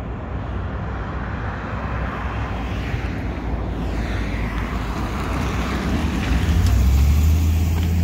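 Street traffic: a car passing on the road, with low wind rumble on the microphone that gets louder near the end.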